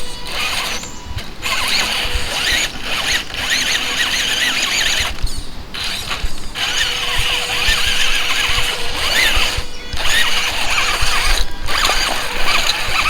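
Radio-controlled Rubicon crawler's electric motor and gear drivetrain whining and squealing as it drives over rough ground. The sound breaks off abruptly every second or two.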